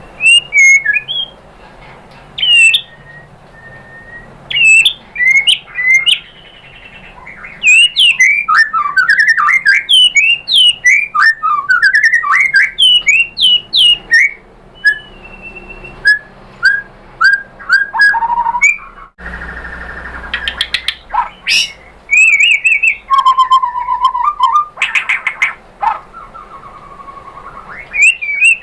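White-rumped shama (murai batu) singing a fast, varied run of whistles, chirps and clicks. The song breaks off briefly about two-thirds of the way through, then a new stretch of song starts.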